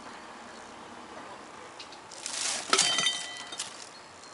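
A short rushing scrape, then one sharp clink with a brief ringing and a couple of lighter clicks, about three seconds in: a hard cast-resin orgonite cylinder with a copper pipe core being handled and knocking against something hard.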